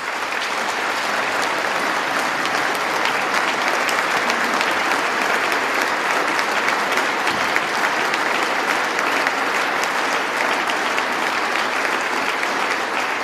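A large audience applauding: dense, steady clapping that starts at once and eases slightly near the end.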